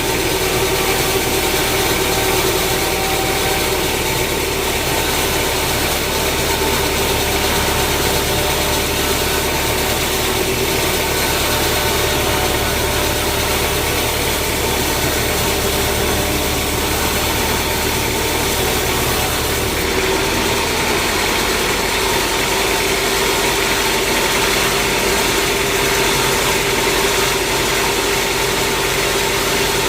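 Sawmill machinery running steadily: a constant engine-like hum with several steady tones. About twenty seconds in, its deepest part drops away while the rest keeps running.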